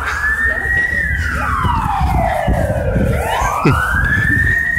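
A siren wailing: the pitch rises over about a second, holds briefly, then falls slowly, and starts rising again about three seconds in.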